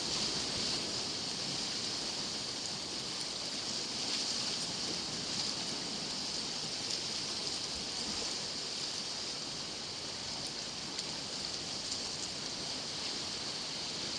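Sea surf washing steadily against a rocky shore, with a steady high-pitched hiss over it.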